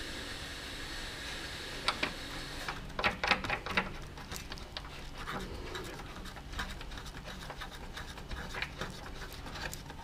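Hands handling a Peugeot 307's plastic rear light cluster as it is seated against the bodywork: irregular light plastic clicks, taps and rubbing, starting about two seconds in and densest shortly after.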